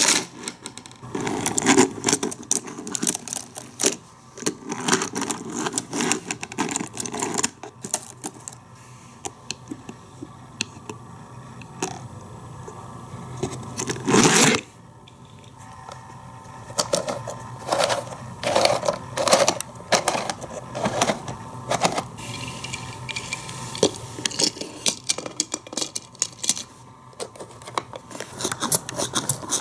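Diecast toy cars rattling along a plastic Hot Wheels track and car-wash playset, with plastic parts clicking and clacking as they are handled. There is one louder clatter about halfway through.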